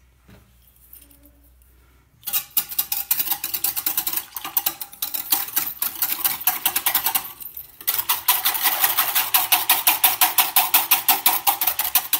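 Wire balloon whisk beating matcha powder into oat milk in a stainless steel saucepan, the wires rattling against the metal pan in rapid, even strokes to break up every lump. It starts about two seconds in, stops briefly past the halfway point, then resumes.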